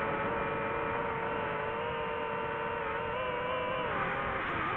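DJI FPV quadcopter's motors and propellers whining in flight at a fairly steady pitch. The pitch dips briefly near the end as the motors slow.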